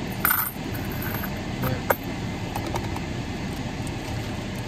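Steady noise inside a car cabin, with the air conditioning fan blowing on recirculated air. A brief rustle comes about a quarter of a second in, and a single sharp click just under two seconds in.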